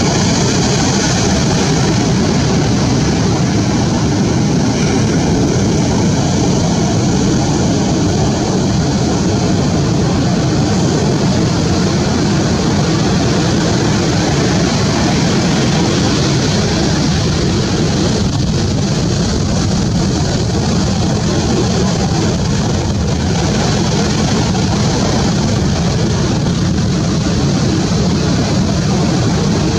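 Steady, unbroken rush of surf breaking and washing up a sandy beach.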